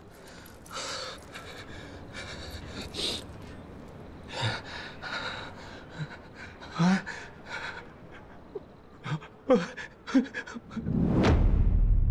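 A man panting and gasping in distress, with short sobbing cries between breaths. Near the end a deep rumbling swell builds up and becomes the loudest sound.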